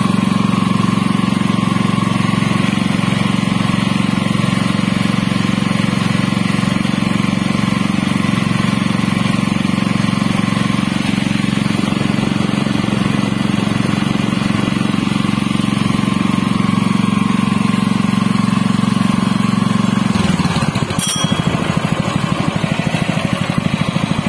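Honda GP200 196 cc single-cylinder four-stroke OHV petrol engine running steadily at a fast, even speed. About twenty seconds in its speed drops and it settles to a slower idle in which the separate firing beats can be heard.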